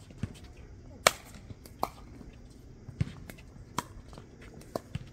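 Pickleball paddles hitting a plastic ball back and forth in a soft rally at the net: a sharp pock about once a second, the loudest about a second in, with lighter ticks between.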